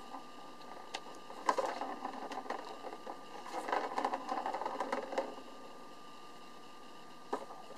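A plastic ball rolling and rattling around the track of a circular ball-track cat toy as a cat bats it: two busy runs, about a second and a half in and again from about three and a half to five seconds, with a few single clicks besides.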